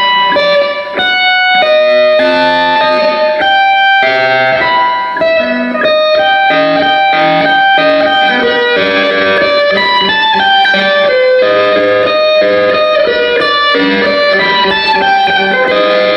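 Electric guitar playing a lead phrase slowly, one note at a time, with the notes changing two or three times a second.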